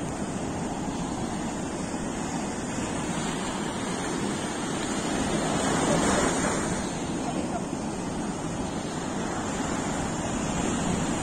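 Sea surf breaking and washing up a sandy beach in a steady rush, with a wave swelling louder about six seconds in.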